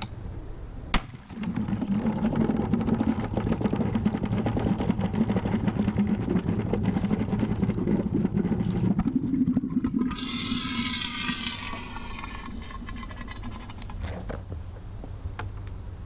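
A sharp crack about a second in, then an expired marine flare burning inside a sealed plastic bucket: a rushing, sputtering hiss for about nine seconds as smoke vents through the holes, ending in a short higher hiss before dying down.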